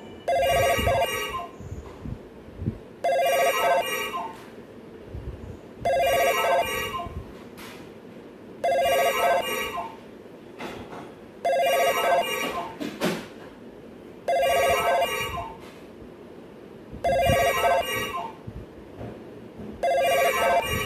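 Telephone ringing with a trilling tone, in rings of about a second repeated roughly every three seconds.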